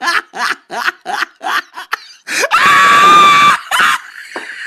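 A person laughing in quick repeated bursts, then one long high-pitched scream starting about two and a half seconds in and lasting about a second.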